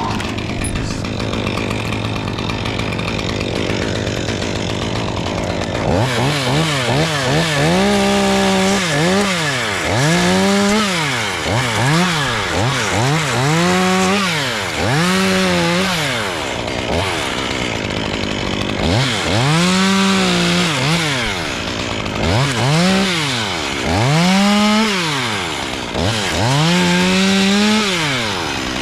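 Chainsaw running steadily at first, then from about six seconds in revved up and down again and again, a rising and falling engine whine every second or two, with a brief lull a little past the middle.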